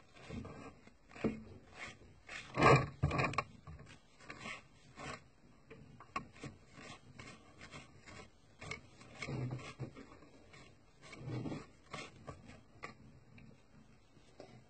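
Cloth rubbed and dabbed over a plastic model tank to wipe off excess oil paint, in irregular scuffing strokes, the loudest a few seconds in.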